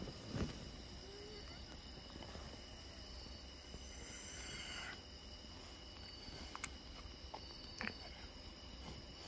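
Small dog gnawing a green dental chew stick: faint chewing with a few short sharp clicks of teeth on the chew.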